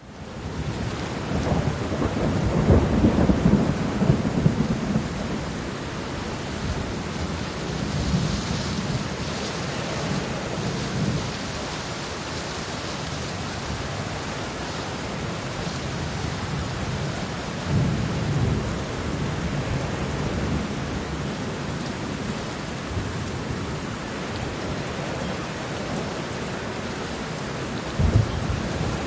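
Steady rain with rolling thunder: long low rumbles swell and fade, loudest a couple of seconds in, with a sharper clap near the end.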